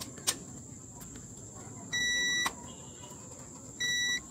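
A ZOTEK ZT102 digital multimeter's continuity buzzer beeps twice, a steady beep of about half a second about two seconds in and a shorter one near the end. It sounds as the probe tips touch low-resistance points while the board is checked for shorts. Small sharp clicks of the probes on the board come between the beeps, the sharpest just after the start.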